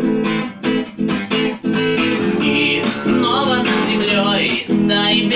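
Acoustic guitar strummed in a steady rhythm, accompanying a man singing a Russian song.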